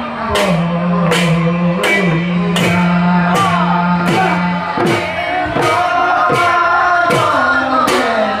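Bihu dance music: a dhol drum beating a steady rhythm, a little under two beats a second, under a sung melody of long held notes that slide between pitches.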